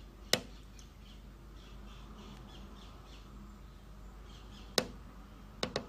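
A few short sharp clicks over a faint steady hum: one about a third of a second in, another near the end, then a quick double click just after it.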